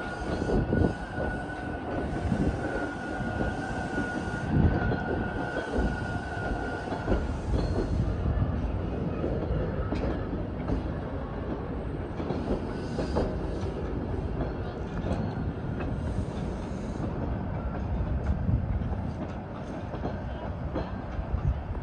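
TTC subway train rolling slowly along the yard tracks, a steady rumble of wheels on rail. A high steady tone runs over it for the first seven seconds or so, and scattered clicks of the wheels over the track follow.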